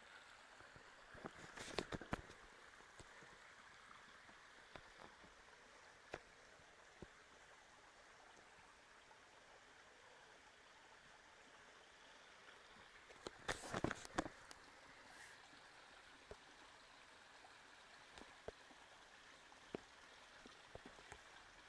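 Near silence: faint steady outdoor hiss, broken twice by a brief cluster of clicks and knocks, about two seconds in and again about halfway through.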